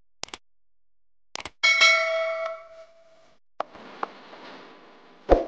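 Kitchenware knocked on the table: a few light clicks, then a loud clang about a second and a half in that rings on for about a second and a half. Soft handling noise follows, and a dull thump comes near the end.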